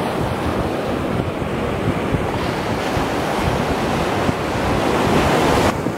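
Ocean surf washing steadily on the beach, with wind gusting across the microphone; the hiss of the surf cuts off abruptly near the end.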